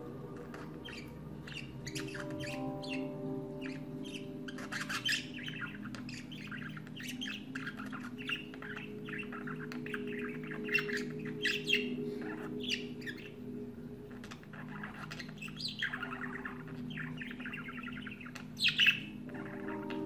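Budgerigar warbling, a male's song to the hens: a fast, uneven stream of short chirps and squeaky calls, loudest near the end.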